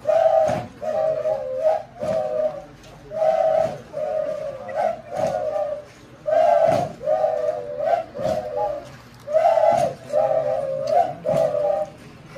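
Traditional dabucuri dance music on wind instruments: short, breathy, flute-like phrases repeating in a steady rhythm, each marked by a low thump of the dance beat.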